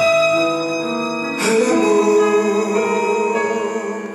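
Live orchestral music with long sustained chords, changing to a new chord about a second and a half in.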